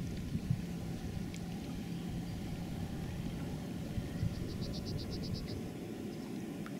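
Outdoor ambience with a steady low wind rumble on the microphone. About four and a half seconds in, a short high-pitched trill of about nine rapid pulses sounds.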